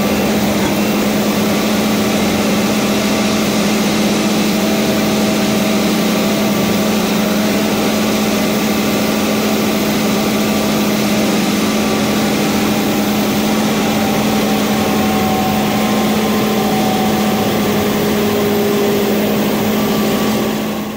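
Log loader's engine running steadily at constant speed, with a strong steady hum under the noise of the machinery.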